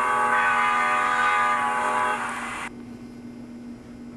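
Train horn sounding one long chord that cuts off abruptly about two and a half seconds in. A steady low hum carries on beneath it.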